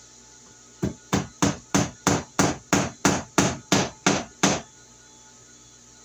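Hammer blows overhead: a run of twelve quick, even strikes, about three a second, starting about a second in and stopping after about four and a half seconds.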